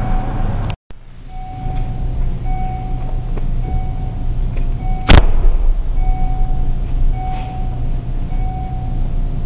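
Chevrolet Aveo's four-cylinder engine idling steadily through a loud aftermarket 'fart can' muffler, with an exhaust leak. A short electronic chime repeats about once a second over the engine. A single sharp thump comes a little past halfway.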